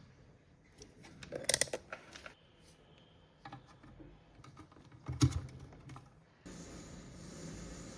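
Clicks and light knocks of small hard parts being handled, in two bunches about one and a half and five seconds in, with scattered smaller clicks between. Near the end a steady hiss with a low hum sets in suddenly.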